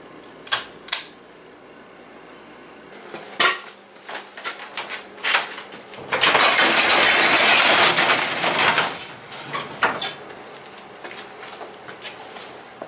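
Two clicks of a pull-chain shop light, then scattered knocks, then a metal sectional garage door hauled open, rattling loudly along its tracks for about three seconds.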